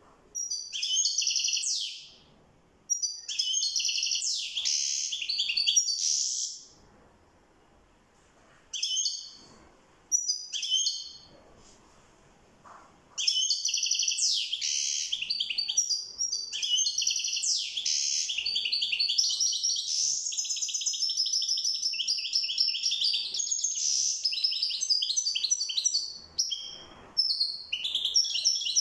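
European goldfinch singing: short bursts of high twittering song separated by pauses at first, then a long, nearly unbroken run of rapid twittering from near the halfway point, with a brief break near the end.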